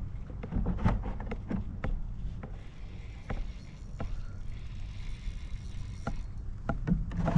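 Rod and reel handling on a fishing kayak while a hooked fish is reeled in: scattered clicks and light knocks over a steady low rumble.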